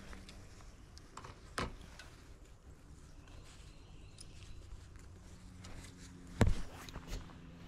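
Handling noise as a caught white bass is grabbed and held by a gloved hand: rustling and a few sharp knocks, the loudest about six and a half seconds in, over a faint steady low hum.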